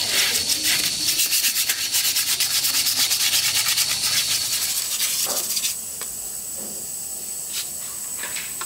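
Sandpaper rubbed back and forth over a cast cement planter in quick, even strokes, about four a second. It cuts off abruptly about two-thirds of the way in, leaving a quieter steady hiss.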